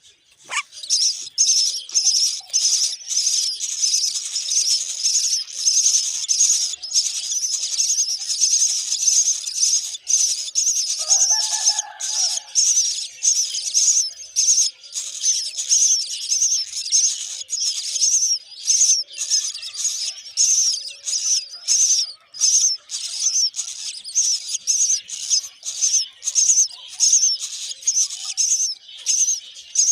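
Myna nestlings begging for food: a continuous stream of rapid, high-pitched chirps, with a brief lower call about twelve seconds in.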